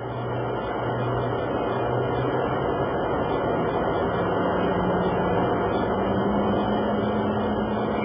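Sabreliner business jet's engines running during a low air show pass: a steady rushing noise with a low hum that steps up in pitch about halfway through.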